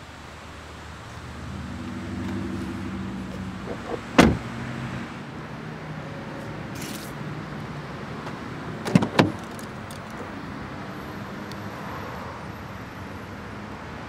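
A car's rear door shuts with one loud thump about four seconds in; about nine seconds in, two quick clicks of the outside handle and latch as the rear door is opened.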